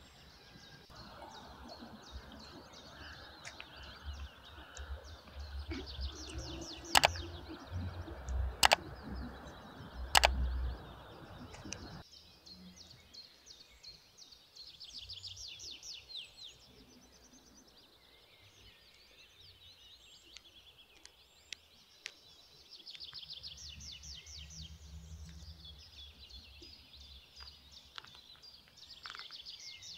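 Small birds chirping in repeated quick trills. Over the first part there is a rustle of hands at work, with three loud sharp clicks a second or so apart; the rustle stops abruptly about twelve seconds in.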